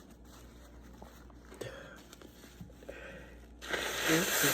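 A few faint small clicks, then about three and a half seconds in a loud, forceful blow of a congested nose, lasting just under a second.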